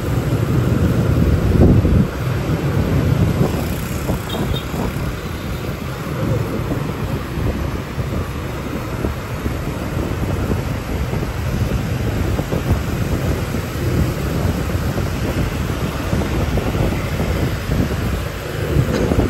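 Motorbike riding through city traffic: wind buffeting the microphone over the bike's engine and the surrounding street traffic, an uneven low rumble.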